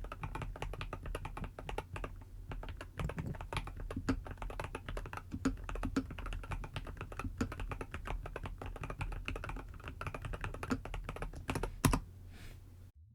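Continuous fast typing on a POJUN PK02 mechanical keyboard with red linear switches: many quick key clacks, one louder keystroke near the end, then the typing stops about a second before the end.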